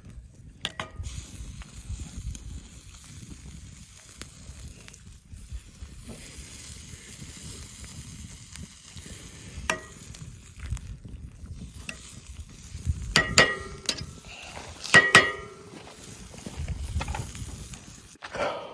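Chicken and dumplings sizzling and bubbling in a cooking pot, with a few sharp metallic clinks, the loudest around two-thirds of the way through and again a little later, like a utensil striking the pot.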